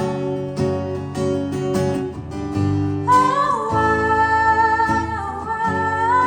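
A female voice singing over strummed acoustic guitar. About halfway in, the voice slides up into one long held note.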